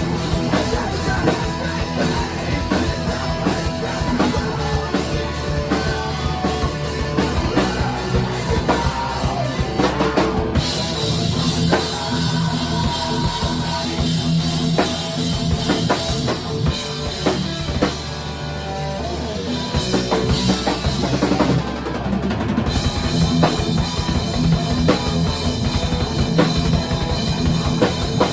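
Rock music with a full drum kit, bass drum and snare, playing a steady beat. The sound changes character about ten seconds in and again a little after twenty seconds.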